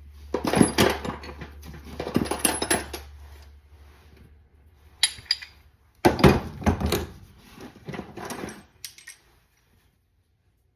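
Metal hand tools clinking and clattering against each other as they are handled and set down, in several bursts of rummaging.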